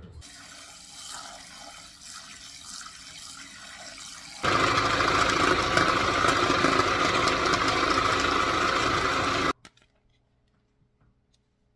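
KitchenAid food processor running, chopping green beans: a loud steady whir for about five seconds that cuts off abruptly, after a quieter stretch of steady noise.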